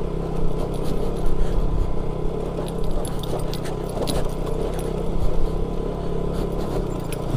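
Motorcycle engine running steadily at low speed on a rough, rocky off-road track, with frequent metallic rattling and clicks over the low drone.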